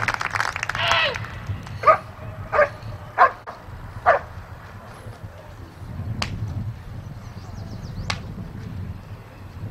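Working dog barking at the helper in the protection phase, about five sharp barks a second or so apart. Later come two sharp cracks.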